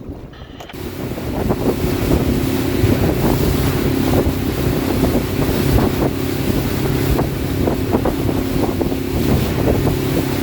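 Fishing boat's motor running steadily at speed, coming up about a second in, with wind buffeting the microphone and water rushing past the hull.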